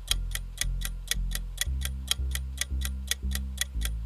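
Countdown-timer sound effect: steady, rapid clock ticks, several a second, over a low pulsing bass line.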